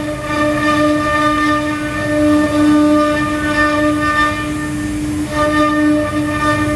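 CNC stone engraving router's spindle whining steadily at a high, even pitch as its bit cuts characters into a stone slab. The upper part of the whine dips briefly about five seconds in.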